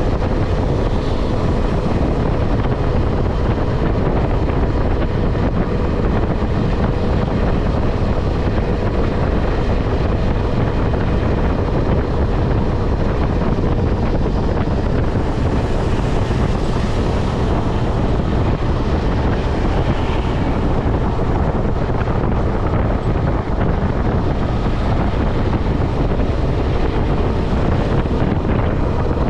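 Steady wind rush on the microphone over the even drone of a KTM 250 Adventure's single-cylinder engine at highway cruising speed, with a brief swell of hiss around the middle.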